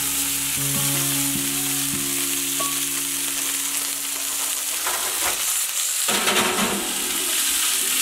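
Diced potatoes, onions and carrots sizzling in a hot cast-iron skillet with a steady frying hiss, while a wooden spoon stirs and scrapes them around the pan.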